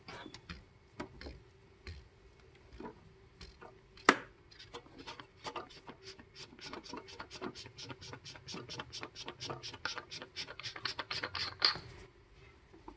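Threaded bottom of a metal oil catch can being unscrewed by hand: the threads scrape in a quick run of clicks, about five or six a second, from about four seconds in, ending in a sharper click just before the end as the can comes apart.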